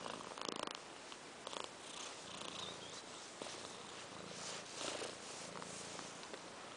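Domestic cat purring steadily while being stroked, its face pressed close to the microphone, with brushing and rustling of fur in the first couple of seconds.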